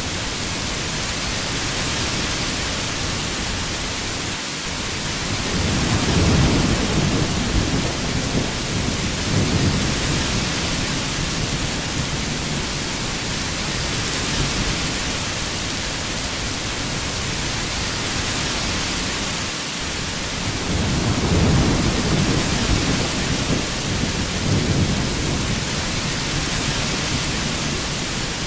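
Heavy rain falling steadily, with two low rolls of thunder swelling up, one about five seconds in and another about twenty seconds in.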